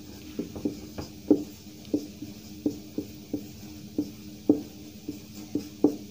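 Marker writing on a whiteboard: a string of sharp knocks, about two a second and unevenly spaced, as the tip strikes the board with each stroke, over a steady hum.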